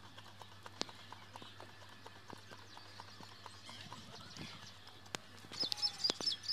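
Faint, scattered clicks and taps, with one sharper click about a second in. Near the end a few short, high bird chirps join louder, closer clicks.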